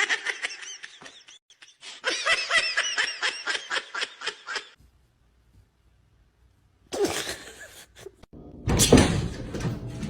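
High-pitched laughter in quick pulses for the first four and a half seconds, then after a short pause two noisy bursts, the second the loudest.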